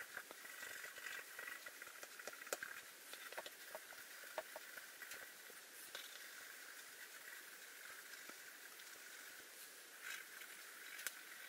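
Graphite pencil scratching on paper in quick hatching strokes, faint, in spells, with a few light ticks of the lead against the sheet.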